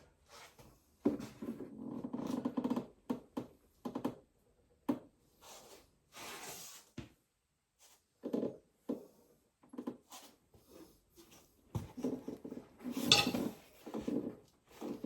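Hand work on mower parts and tools: irregular knocks, clinks and scraping of metal parts being handled, with the loudest clatter about thirteen seconds in.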